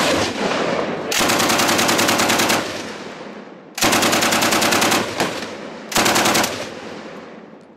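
Pan-fed Degtyaryov DP-pattern light machine gun firing several bursts on full auto: two of about a second and a half, then a brief one and a half-second one, with each burst's reports echoing away after it.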